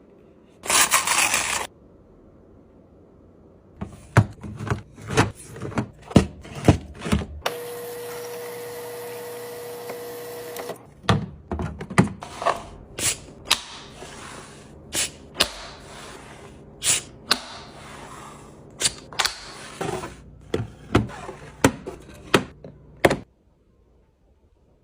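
Groceries and storage containers handled and set down during fridge and pantry restocking: a string of sharp knocks, clicks and thunks, with a steady hiss lasting about three seconds in the middle. The sounds stop shortly before the end.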